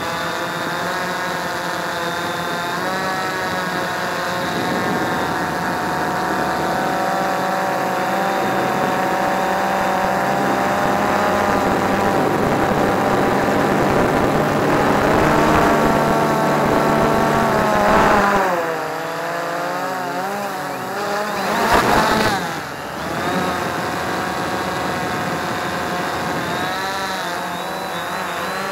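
Quanum Nova quadcopter's four electric motors and propellers whining, heard from a camera on the aircraft, the pitch of the whine shifting with throttle. About two-thirds of the way in the pitch swoops down and back up, followed by a brief loud rush of noise.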